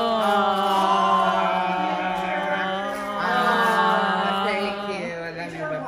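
A voice holding long chant-like notes, the pitch steady for seconds at a time, wavering in the middle and dropping a little near the end.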